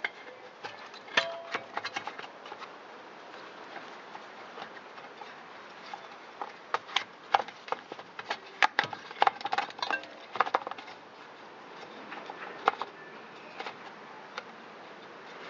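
Irregular light clicks, taps and rustles as a plastic engine cover and a spark plug wire with its rubber shield are handled and worked through a channel in the cover, over a faint steady hiss.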